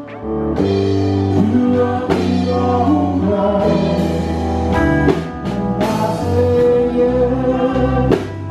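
Live band playing, with singing over guitars and a drum kit.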